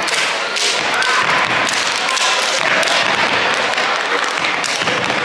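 Steppers stomping on a hardwood gym floor and slapping and clapping their hands in a step routine: a run of sharp stomps and slaps at an uneven beat, with voices shouting over them.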